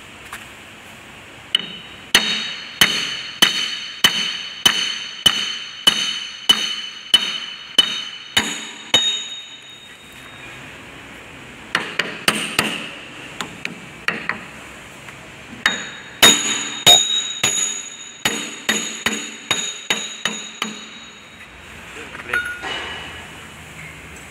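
Hammer blows on metal with a ringing tone after each strike, in a steady run of about one and a half blows a second. After a pause of a couple of seconds, a shorter run follows, then a quicker run of blows that tails off.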